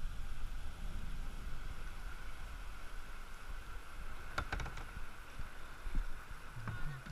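Water churning and rushing in a river lock chamber as the lock fills, heard at water level with a steady low rumble. A quick run of light knocks comes about four and a half seconds in.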